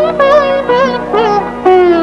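Instrumental passage of a 1950s Hindi film song: a plucked string melody of bending, wavering notes struck about every quarter to half second, over a steady low drone.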